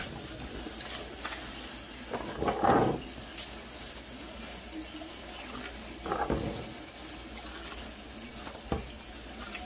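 Washed, wet rice poured from a plastic bowl into a pot of boiling water, splashing in a few surges over a steady bubbling hiss of the boiling water.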